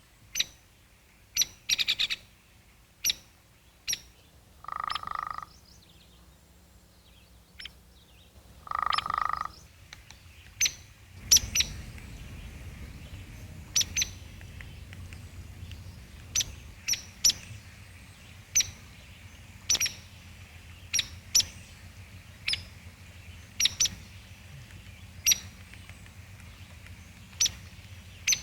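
Short, sharp animal chip calls repeated about once a second, with two longer, lower nasal calls a few seconds in. A faint low hum comes in about halfway through.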